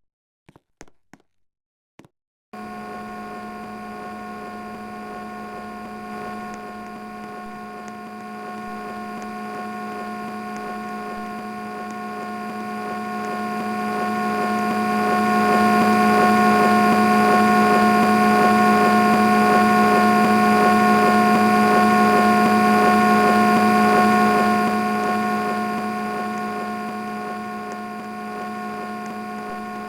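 Old Samsung split air conditioner running with a steady electrical hum made of several fixed tones. It starts abruptly after a few faint clicks a couple of seconds in, grows louder midway, then eases back.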